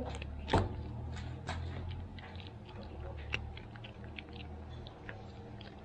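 A cat crunching dry kibble, a close run of irregular sharp crunches and clicks, over a low steady rumble.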